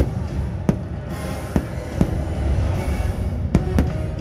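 Fireworks launching and bursting above a crowd: about six sharp bangs over a steady rumble and the fireworks show's music.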